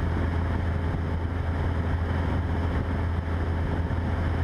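Cessna 172's piston engine and propeller droning steadily in cruise, heard through the headset intercom: a constant low hum with an even rush of noise above it.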